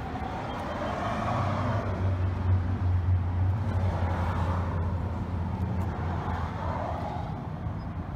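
A car engine running steadily with a low, even hum.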